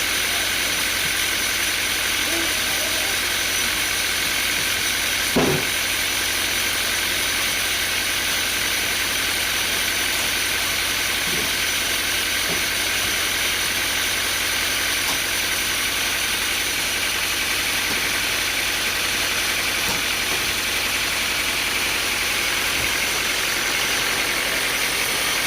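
Sawmill machinery running steadily, with one short knock about five seconds in.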